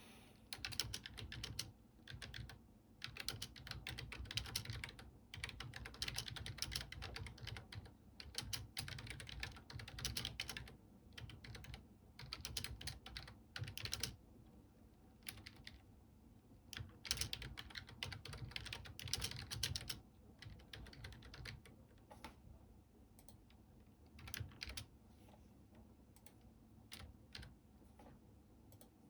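Typing on a computer keyboard: quick runs of key clicks in bursts of a few seconds with short pauses, thinning out to scattered keystrokes after about 20 seconds.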